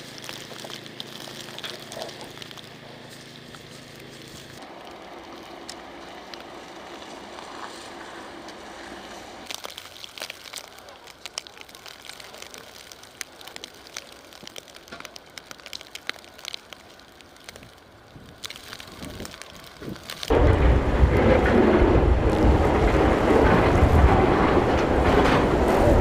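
Faint outdoor ambience in a blizzard with scattered light ticks and crackles, changing abruptly a few times. About twenty seconds in, loud gusting wind buffeting the microphone takes over.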